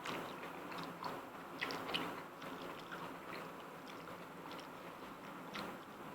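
Close-miked chewing and mouth sounds of someone eating jjajangmyeon (black bean noodles), with small wet clicks scattered through and the loudest couple of clicks around two seconds in.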